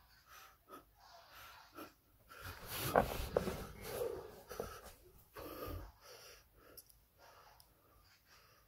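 A man breathing hard through the mouth from exertion, in a string of forced, wheezy exhalations, loudest a few seconds in.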